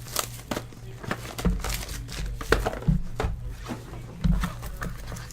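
Scattered light taps, clicks and rustles of trading card packs and cards being handled, over a low steady hum.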